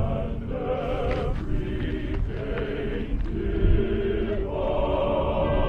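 Choral chanting music: several held voices sustaining long notes, one wavering about a second in.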